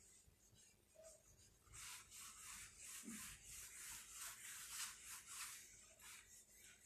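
Marker writing being wiped off a whiteboard: a run of brisk, faint back-and-forth rubbing strokes, two or three a second, starting about two seconds in and stopping near the end.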